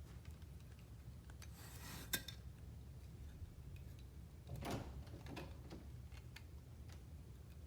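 Plastic Lego bricks being handled: scattered small clicks and clatters, with one sharp click about two seconds in and brief rattling of loose pieces.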